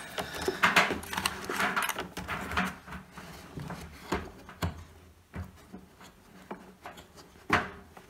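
Hands working inside an open tumble dryer, rubbing against wiring and knocking on its plastic and metal parts while feeling behind the drum for the drive belt: scattered taps and scrapes, with one louder knock near the end.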